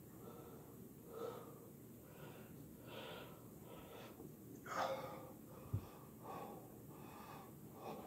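A man breathing hard after a long set of push-ups: heavy, wheezy breaths about once a second, one louder gasp near the middle, followed by a single short bump.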